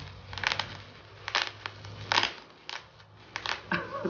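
A string of short, crisp crackling snaps at irregular intervals, about half a dozen in four seconds, from something being handled or squeezed.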